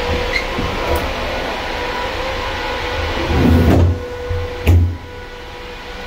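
Iveco refrigerator truck running steadily, with a few sharp knocks and a louder rumbling clatter about three and a half seconds in.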